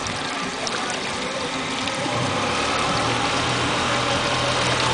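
Outboard motor running at low speed with wind and water noise. About two seconds in, a steady low engine hum comes up and the sound grows slightly louder.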